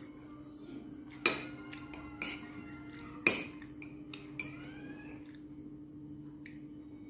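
Metal spoon and fork clinking and scraping on a ceramic plate: two sharp clinks, about a second in and about three seconds in, with lighter taps between. A steady low hum runs underneath.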